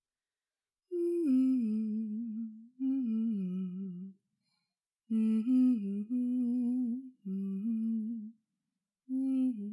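A woman humming a wandering, carefree tune in short phrases, about five of them, with brief silent gaps between them.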